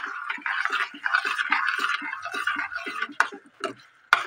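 Steel spoon stirring and mashing thick pav bhaji in a stainless steel pan: a rapid, continuous wet scraping, then a couple of sharp knocks of the spoon against the pan near the end.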